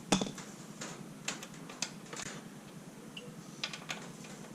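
Hand tools on metal: a handful of sharp, irregular clicks and clinks, the loudest right at the start.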